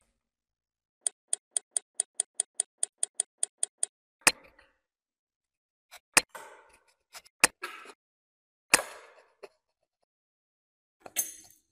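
Steel tweezers clicking shut over and over, about five times a second for three seconds. Then a handful of single sharp metal clicks and taps with short rustles, as small steel hand tools are picked up and laid down on a wooden table.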